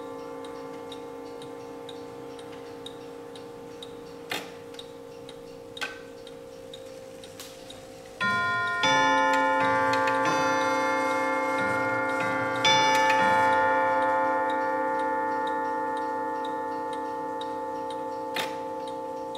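Antique Winterhalder & Hofmeier triple-fusee mantel clock ticking while the last notes of a chime ring away. About eight seconds in, its movement strikes a run of chime notes, spaced roughly half a second to a second apart, which ring on together and slowly fade.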